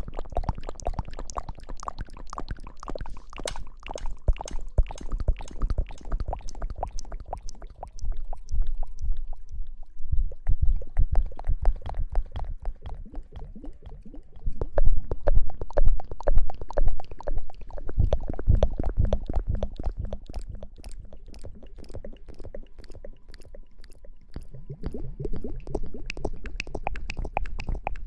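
Close-miked ASMR hair-washing sounds: squishy, crackling scrubbing and rubbing right at the microphone, over a low rumble. It comes in uneven surges and is loudest about halfway through.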